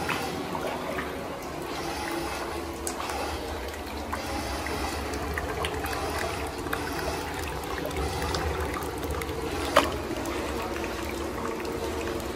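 Hot-spring source water trickling and splashing from an inlet spout into a wooden bath tub, a steady running-water sound, with one sharp click about ten seconds in.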